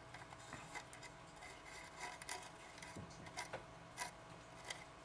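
Faint scattered ticks and small clicks over a faint steady hum, as a soldering gun melts solder into a twisted-wire joint.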